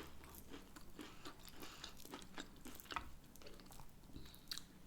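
Close-up chewing and biting of breaded chicken wings: soft, irregular wet crunching and mouth clicks.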